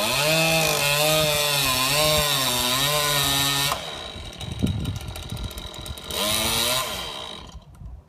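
Chainsaw cutting into a eucalyptus trunk, its engine note dipping and recovering under load. About halfway through it drops back, revs once more briefly near the end, then dies away.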